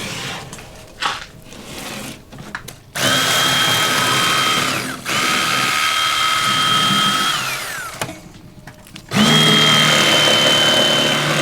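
Old Timer electric fillet knife running in three bursts of about two seconds each, a steady motor whine as it cuts fillets off crappie; the second run winds down in pitch as it is switched off.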